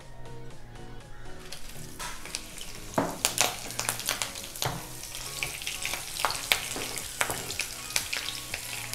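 Dried red chillies and green chillies sizzling in hot coconut oil with crackling cumin seeds in a kadai. The sizzle grows loud about one and a half seconds in, with sharp crackles and pops from about three seconds on, while a wooden spoon stirs them.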